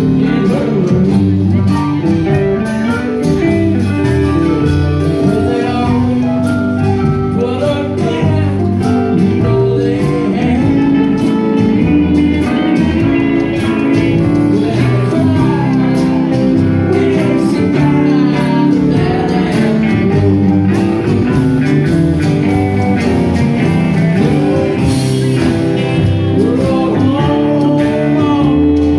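Live roots-rock band playing: strummed acoustic guitars and electric guitars over a drum kit, with singing. The playing is loud and steady.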